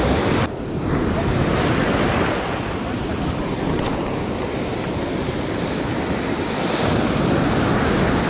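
Ocean surf washing and breaking in the shallows around the feet, a steady rushing of water, with wind buffeting the microphone.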